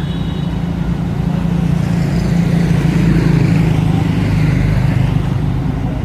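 A motor vehicle's engine running close by, its hum growing louder toward the middle and easing off near the end, as if passing.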